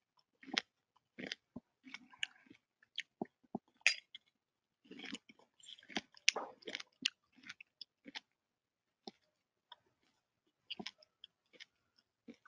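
Faint, irregular clicks and crackles close to the microphone, dense for the first seven or eight seconds and then sparser.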